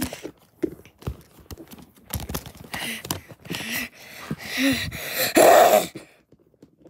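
Plastic toy animal figurines knocking and clicking against each other and the carpet in a mock fight, mixed with breathy hissing and growling fight noises made by a voice; the loudest hiss comes near the end and everything stops suddenly about six seconds in.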